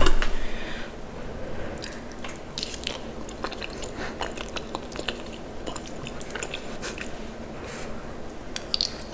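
A person chewing and biting mouthfuls of cheesy macaroni and cheese close to the microphone, with many scattered short clicky mouth sounds, loudest just at the start.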